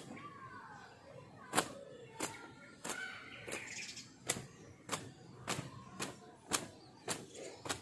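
A towel repeatedly slapping against long wet hair as it is towel-dried: sharp wet slaps in a steady rhythm, about one every 0.6 seconds.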